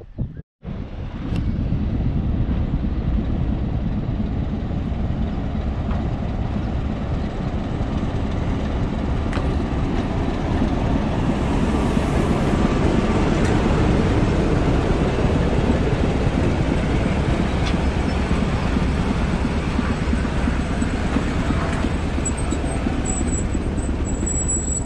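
A train on the Pichi Richi Railway running, a steady heavy rumble with a thin high squeal near the end.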